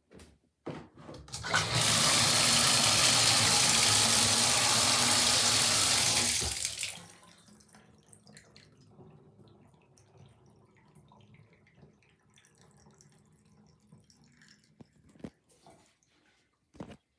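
Toilet flushing: a click, then about five seconds of loud rushing water that dies away quickly, followed by quiet with a couple of faint clicks.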